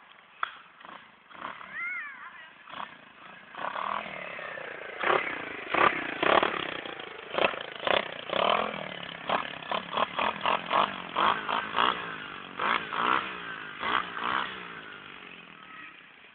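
125 cc dirt bike engine revving up and down as the bike rides close past, growing louder, then fading away near the end, with many sharp knocks and crackles over it.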